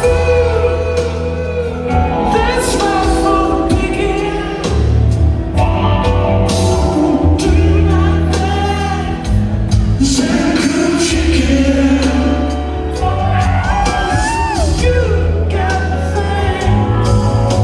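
Live band performance: singing over deep held bass notes and drums.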